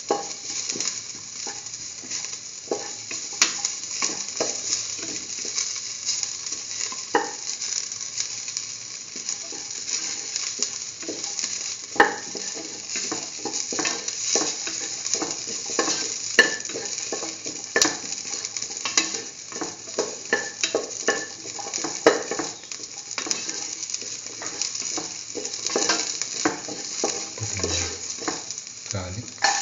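Chopped onion and shallots sizzling in hot oil in a pan, with a spatula scraping and knocking against the pan many times as they are stirred.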